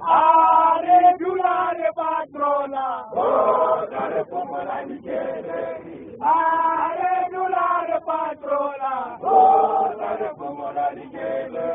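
Group of men chanting and singing together in a Zion Christian Church (ZCC) mokhukhu chant. Loud sung phrases with held notes start about every three seconds.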